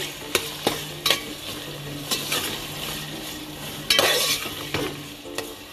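Minced mutton with chopped tomatoes and green chillies frying in hot oil in a metal pot, sizzling as it is stirred with a metal spoon. The spoon clicks and scrapes against the pot now and then, loudest about four seconds in.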